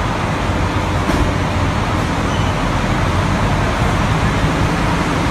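Coach bus engine running close by, a steady low rumble.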